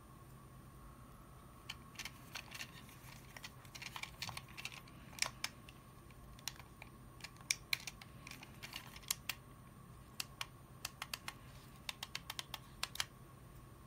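Plastic buttons on a handheld Bluetooth VR remote being pressed to control a paired phone: a run of irregular sharp clicks, some in quick clusters, starting about two seconds in.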